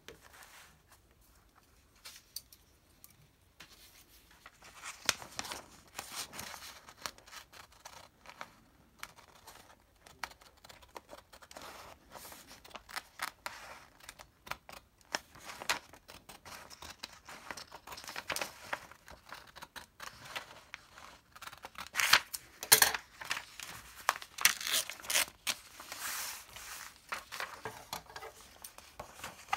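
Scissors snipping through a sheet of squared notebook paper, cutting out a curved paper template, with the paper rustling and crinkling as it is turned in the hand. Irregular crisp snips start a few seconds in and are loudest about three-quarters of the way through.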